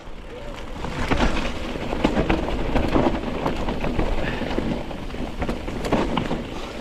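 Mountain bike riding fast down a rough woodland dirt trail: tyres on soil and roots, with the bike rattling and knocking over bumps many times, and wind rumble on the bike-mounted microphone.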